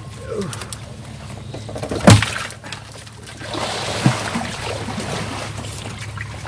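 Water sloshing and trickling as someone moves through a shallow, weedy canal, with a sharp knock about two seconds in and a smaller one about four seconds in.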